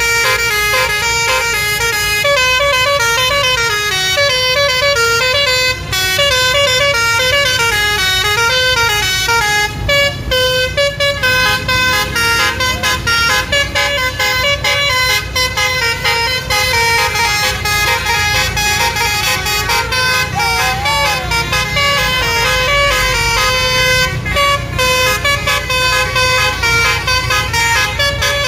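A bus's Basuri 'telolet' musical horn plays a quick tune of short notes that step up and down in pitch, over the low rumble of an engine.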